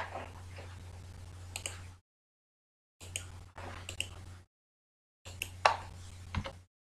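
A few sharp computer mouse clicks with faint rustling, over a low electrical hum that cuts in and out in stretches of a second or two.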